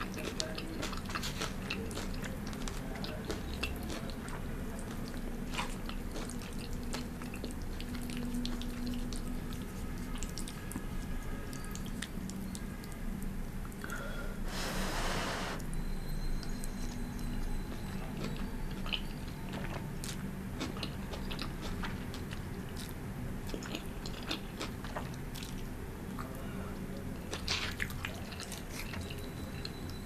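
Close-miked chewing of pan-fried noodles and vegetables, with many short wet mouth clicks. About halfway through comes a drawn-out slurp of a forkful of noodles, lasting a little over a second.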